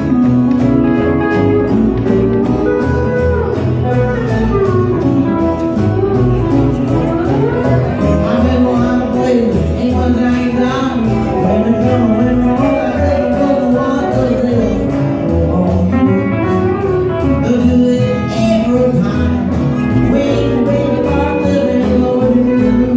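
Live rockabilly band playing: electric and acoustic guitars over an upright bass, with a man singing.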